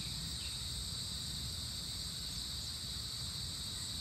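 Steady chorus of insects, a continuous high trilling drone at several pitches, with a low rumble beneath and a few faint short chirps.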